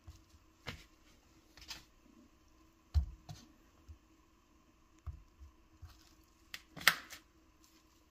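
Hands pulling apart raw ground beef and setting portions on a plastic-wrapped kitchen scale and a paper plate: scattered soft taps, a few low thumps and short rustles, the loudest rustle about seven seconds in.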